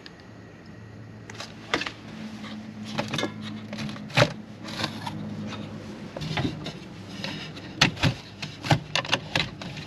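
Sharp clicks and knocks from hands handling things at an RV window frame and countertop, coming thicker in the second half. Under them is a low steady hum that starts about a second in and fades around seven seconds.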